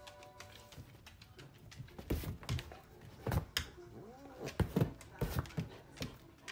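A dog and a cat tussling on a leather armchair: a string of irregular thumps and knocks from pawing and swatting, with a short animal sound about four seconds in.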